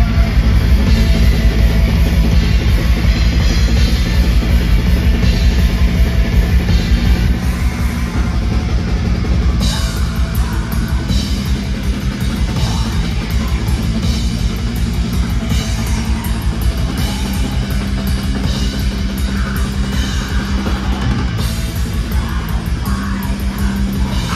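Black metal band playing live: fast, dense drumming over sustained distorted guitar and bass, with a cymbal crash about once a second from roughly midway on.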